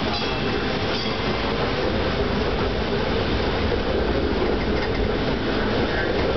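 TTC ALRV articulated streetcar running along street track, heard from inside the cabin at the front: a steady rumble of wheels on rail.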